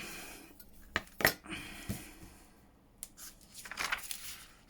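Paper and craft tools being handled: two sharp clicks about a second in, then paper rustling a little after three seconds.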